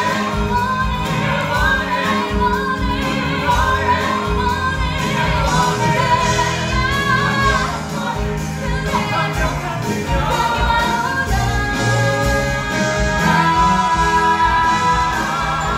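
Musical-theatre cast singing a number over instrumental accompaniment with a steady beat, female voices leading.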